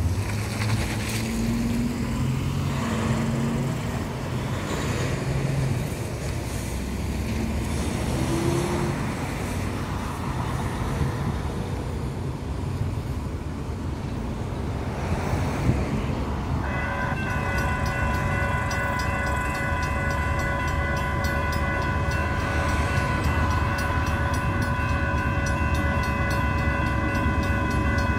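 Road traffic noise at a level crossing. About seventeen seconds in, the crossing signals activate and several railroad crossing bells start ringing together: electronic bells sounding steady overlapping tones, and a mechanical bell striking rapidly. This is the warning of an approaching train.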